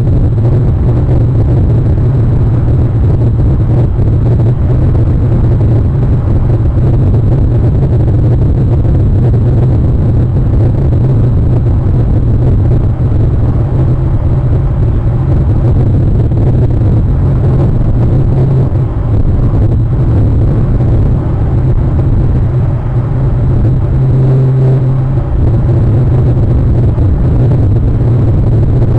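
Steady low rumble that holds unchanged throughout, with a faint thin high tone above it.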